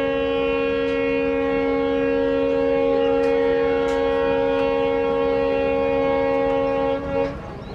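Diesel locomotive air horn sounding one long, steady multi-tone chord, cutting off about seven seconds in.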